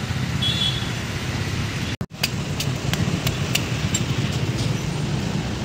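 Steady road traffic noise with a low engine hum, broken by a brief dropout about two seconds in, with a few faint clicks after it.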